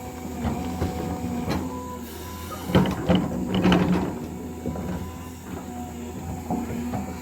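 Diesel engine of an earthmoving machine running steadily. Loud clanking and rattling about three seconds in lasts for about a second, with lighter knocks before and after.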